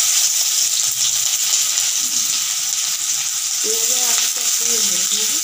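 Chopped onion sizzling in hot mustard oil in a kadai, a steady hiss. A faint voice comes in briefly past the middle.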